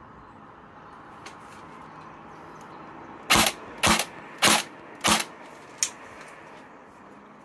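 Four short, sharp noisy bursts evenly spaced about half a second apart, loud against a faint outdoor hush, then a fainter fifth.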